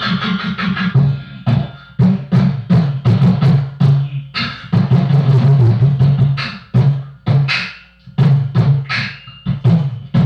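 Beatboxing: mouth-made drum hits, kick and snare sounds in a quick rhythm, over a low sustained tone, with brief breaks now and then.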